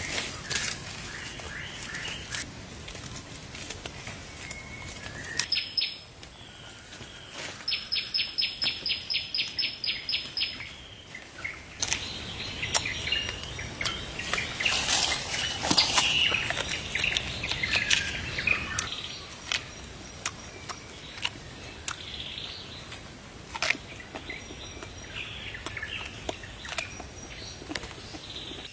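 Forest ambience with a bird calling a rapid series of high, evenly spaced notes, about six a second, a third of the way in, and a louder stretch of rustling noise in the middle.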